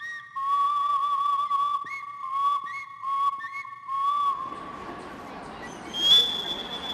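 A whistle-like tune, held mostly on one high wavering note with short jumps to higher notes, that stops about four seconds in. It gives way to the murmur of an outdoor crowd, with a brief sharp high tone near the end.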